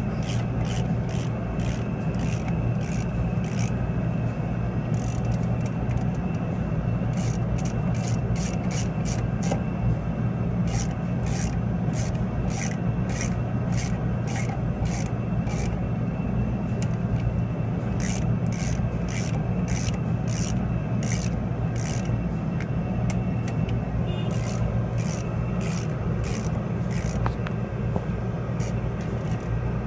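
Ratchet wrench clicking in quick runs with short pauses as the adjustment nuts on a disc brake's rods are run down to close the air gap, over a steady low hum.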